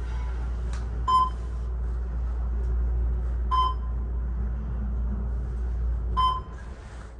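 Schindler 500A traction elevator car travelling down, its position indicator giving a short beep at each floor passed, three times about two and a half seconds apart, over a steady low hum of the moving car. The hum drops away just after the third beep as the car stops.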